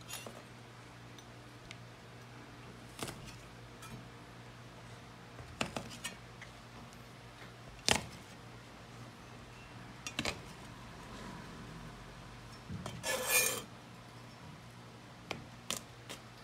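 A cleaver knocking on a plastic cutting board while garlic cloves are crushed under the flat of the blade and chopped. Single sharp taps come a few seconds apart, the loudest about eight seconds in, with a short clatter about thirteen seconds in.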